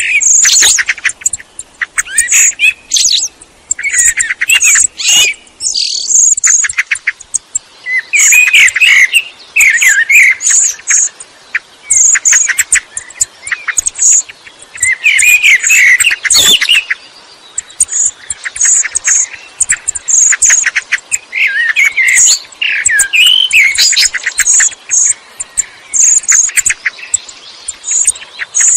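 Eurasian blackbird singing: low fluting, warbled phrases every few seconds, with many short, thin high-pitched notes in between.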